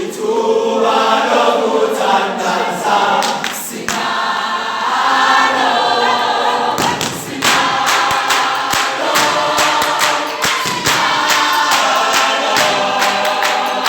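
A choir singing together without instruments. From about seven seconds in, sharp percussive beats keep time under the voices.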